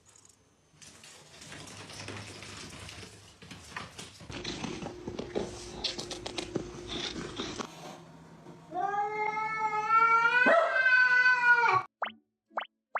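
A cat giving one long, drawn-out yowl of about three seconds, rising slightly in pitch before it cuts off. Before it come several seconds of rustling and scattered knocks.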